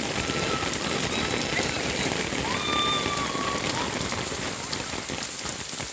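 Heavy rain falling steadily. A couple of faint, drawn-out high voice-like calls cut through it, one at the start and one about halfway.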